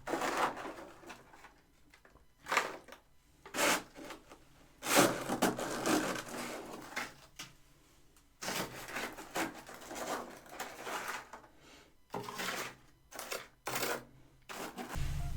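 Crunchy bites and chewing of freezer frost: a string of crisp crunches with short pauses between them, bunching into faster runs in the second half.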